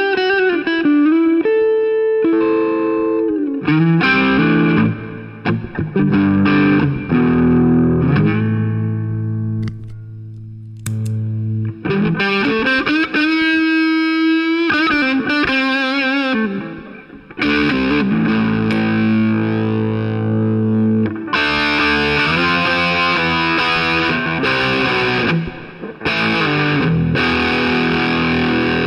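G&L ASAT Deluxe Tribute electric guitar played through distortion: melodic lines of sustained single notes, some bent and shaken with vibrato. About two-thirds of the way in the playing turns brighter and more heavily distorted.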